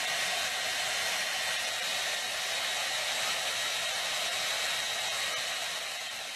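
Handheld hair dryer blowing steadily: an even rush of air with a faint high whine, growing a little quieter near the end.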